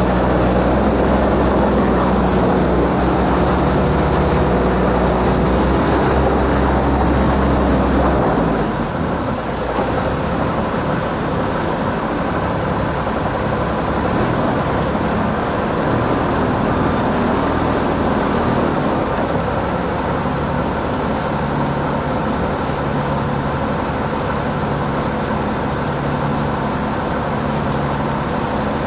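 Diesel engines of articulated dump trucks running hard as one truck tries to pull a stuck one free. The engine note eases about eight seconds in and runs on steadily. The stuck truck does not come out.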